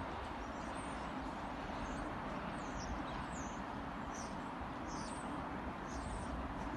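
Small birds chirping: several short, high calls falling in pitch, over a steady rushing background noise.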